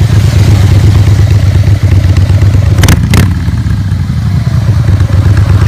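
Harley-Davidson motorcycle's V-twin engine running with a loud, steady low rumble. Two sharp clicks come close together about three seconds in.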